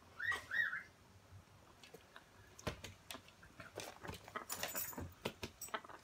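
An African grey parrot whistles two short notes, each rising and falling, within the first second. From about halfway in comes a run of light clicks and jingling.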